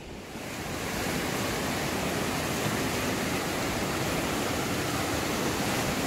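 Fast mountain river rushing over rapids: a steady whitewater roar that swells up over the first second and then holds.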